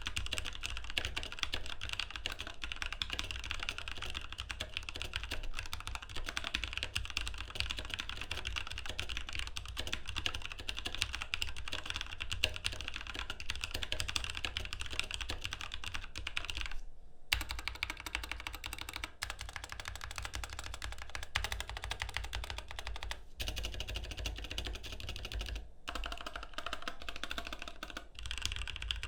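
Continuous fast typing on an ASUS ROG Strix Scope TKL mechanical keyboard with Cherry MX Red linear switches: a dense run of keystroke clacks that stops briefly twice in the second half.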